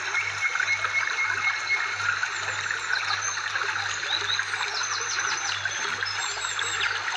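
Steady trickling, babbling water, full of small crackles, with a few thin high chirps now and then.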